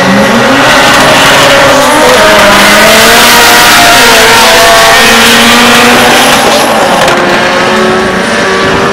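Drag-racing cars launching off the line and accelerating hard down the strip, engines revving up and dropping back at each gear change. The sound is very loud at first and fades slightly near the end as the cars pull away.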